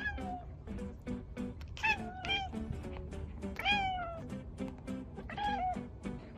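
A domestic cat meowing about five times, each call falling in pitch, the longest one near the middle, over background music with a steady beat.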